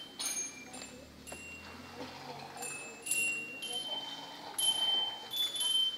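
A small toy instrument played note by note: high, bell-like tones at a few different pitches, each ringing briefly.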